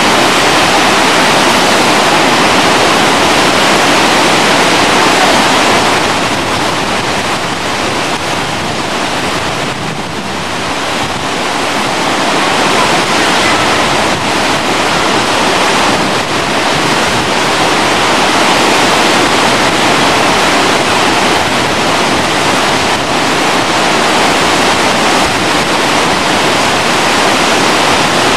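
Loud, steady rush of a fast mountain river, the Bhagirathi, with no pitch or rhythm to it. It dips slightly in level about a third of the way in, then comes back up.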